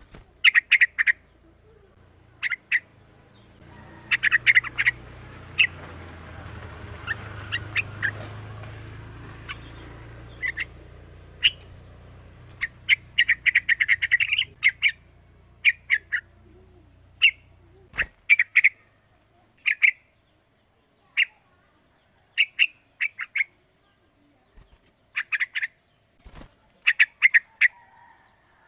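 Young yellow-vented bulbul (trucukan) calling: short chirpy notes in quick clusters of two to four, repeated every second or two. A faint hiss and low rumble sit underneath through the first half.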